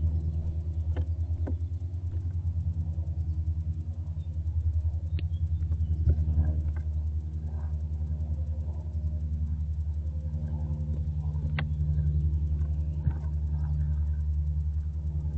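A steady low rumbling hum on the nest-box microphone, with a few sharp clicks and faint scratches scattered through it as barn owlets shift on the box floor and handle a rat.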